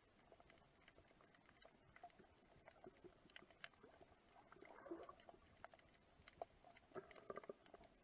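Near silence: faint underwater ambience of irregular scattered clicks and crackles, a little busier about five seconds in and again near the end.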